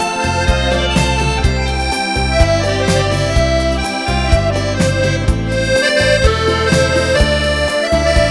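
Accordion playing a melody in held notes over a steady bass accompaniment that changes about once a second, with a regular beat underneath.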